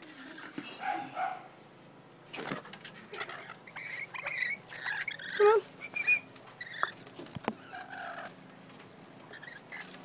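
Parrots (a rainbow lorikeet and a sulphur-crested cockatoo) giving short squawks and chirps, busiest in the middle, some sliding down in pitch, with a couple of sharp taps.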